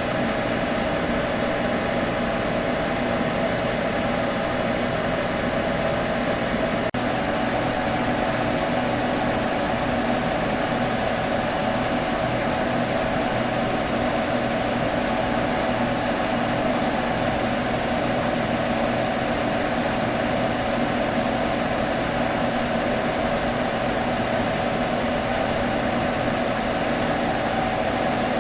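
Computer humming steadily: cooling fans whirring with a constant low hum, unchanging throughout.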